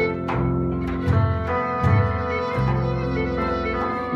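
Live band playing Middle Eastern-style dance music: a violin melody over plucked guitar and steady low bass notes.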